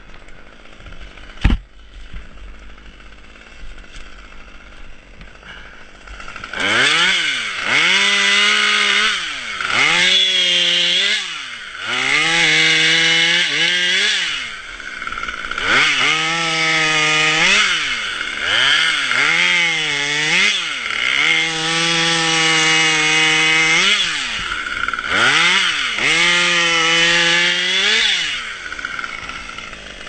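Chainsaw running at a low idle with a single sharp click near the start. After about six seconds it is revved up to full speed, held and let fall back, over and over: repeated cutting strokes.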